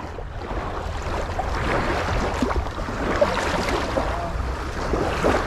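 Wind buffeting the microphone over the steady wash of sea waves at the shoreline.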